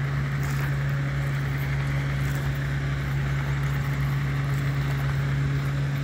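Steady low machine hum holding one constant tone, with an even rushing noise beneath it.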